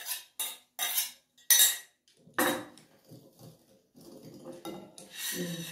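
A metal spoon scraping and knocking inside a small stainless steel saucepan, scooping the last of the melted butter out into a glass mixing bowl. There are a handful of short, sharp scrapes in the first two and a half seconds, then softer clinks.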